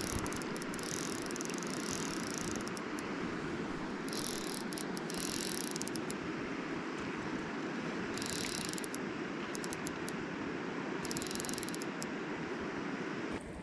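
Steady rush of river water, with several short bursts of high-pitched hissing or clicking over it.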